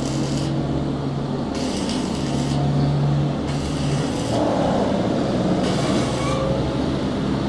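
Workshop machinery running with a steady low hum, overlaid by short bursts of hiss that recur about every two seconds.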